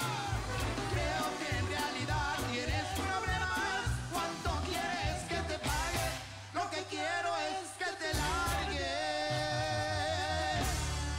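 Live banda music, a regional Mexican brass band, with horns carrying the melody over a pulsing bass beat. The bass drops out about six seconds in, then the band comes back in and holds a long wavering chord near the end.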